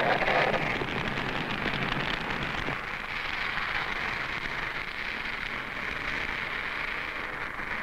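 Steady rushing noise of a 1940s car driving off along a road, engine and tyres blended into one even hiss, a little louder in the first few seconds.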